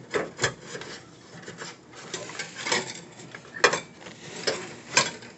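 Crown Victoria fuel pump assembly being worked out from above the fuel tank, scraping and rubbing against the tank and underbody with several sharp knocks.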